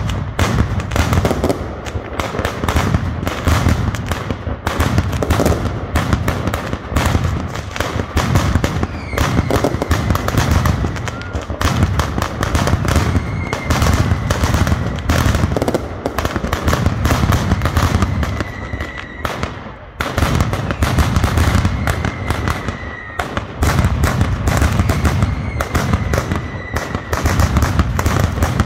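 Mascletà: a loud, unbroken barrage of firecrackers bursting in rapid succession, the bangs crowding together into a continuous rattle. It eases for a moment about twenty seconds in, then picks up again, with a faint high whistle heard now and then in the second half.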